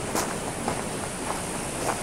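Footsteps on gravel and dirt ground, about four steps at a steady walking pace, over a steady background hiss.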